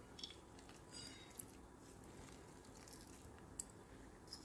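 Near silence, with a few faint, short ticks as chopped almonds and pistachios are sprinkled over kheer in a glass bowl.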